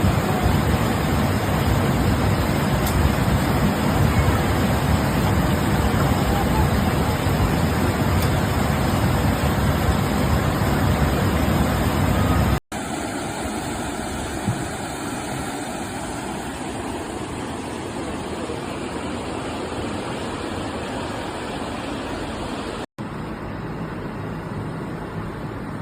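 Steady rushing noise of water, loudest at first, then cutting to quieter stretches about halfway through and again near the end.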